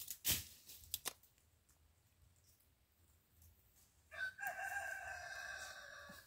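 A rooster crowing once, one long held call of about two seconds in the second half. Near the start, a sharp knock and a fainter click.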